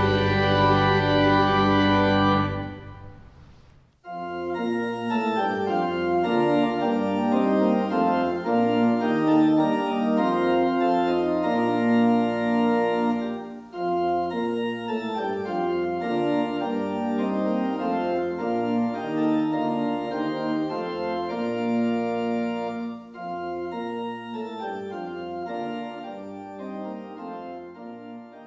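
Organ music: a held chord dies away over the first few seconds, then about four seconds in the organ starts a new passage of sustained chords and moving notes, growing quieter near the end.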